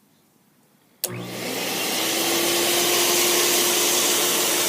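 Little Blizzard stage snow machine switched on about a second in: its blower starts suddenly and settles into a steady, loud airy noise with a steady hum through it. This is the machine running and making snow after its seized fluid pump was replaced.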